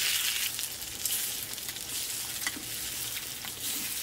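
Beaten eggs sizzling in a small rectangular tamagoyaki pan over a portable gas stove. Tongs stir and push them around, with a few faint scrapes against the pan.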